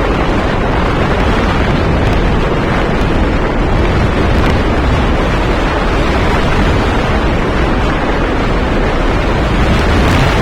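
Steady rushing wind and road noise from a moving vehicle, heaviest at the low end, with no distinct events.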